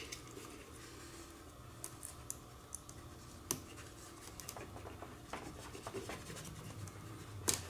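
Faint scratching and small plastic clicks of fingers pushing RC servo and light wire plugs together, with a sharper click about halfway through and another near the end.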